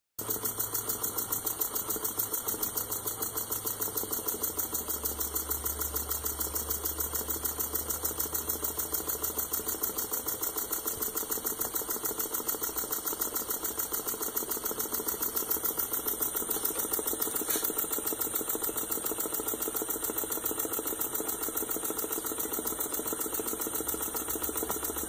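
Elmer's #2 model engine running on compressed air, its exhaust puffing and its parts clicking in a rapid, even rhythm.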